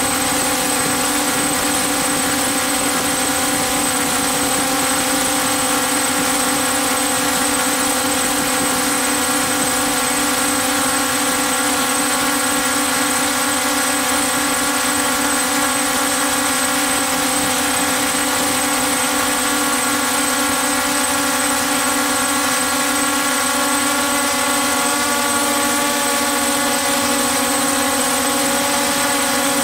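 DJI F550 hexacopter's six electric motors and propellers running steadily in flight, a dense many-toned hum and whine heard close up from the camera on board. The tones shift slightly near the end.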